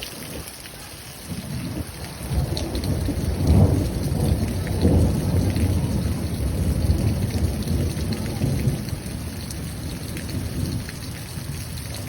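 Thunder rolling over steady heavy rain. The deep rumble builds about a second in, is loudest around four seconds in, and then slowly dies away while the rain keeps hissing.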